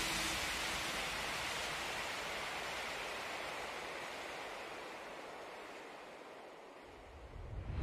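Steady rushing hiss of wind and road noise on a handlebar-mounted camera while cycling, fading out gradually. A low swell begins near the end.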